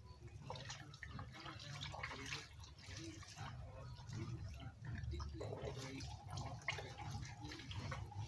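Water dripping and trickling into a plastic basin as raw tripe is squeezed and wrung out by hand, in many small irregular splashes.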